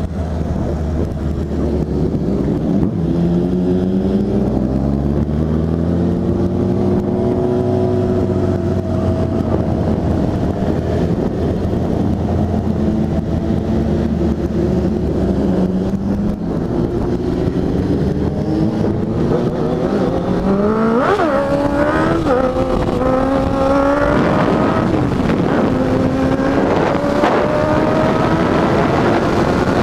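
Motorcycle engine running under way, heard from the rider's seat. Its pitch rises and eases off in the first half, then climbs again and again with short drops between, as the bike accelerates up through the gears.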